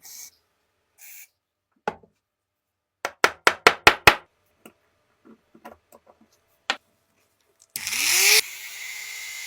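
Scattered clicks and a quick run of about seven sharp taps as tools are handled. Near the end a small electric power tool spins up, its pitch rising, and keeps running steadily.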